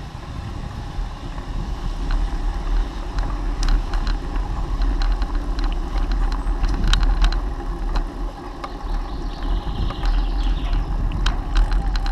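Wind buffeting the microphone of a bicycle-mounted camera as the bike rides along a tarmac path: a steady low rumble with tyre noise, and scattered sharp clicks and rattles from the bike.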